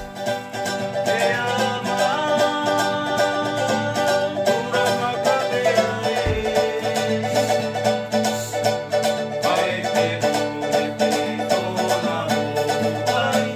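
Background music with fast, evenly picked plucked-string notes.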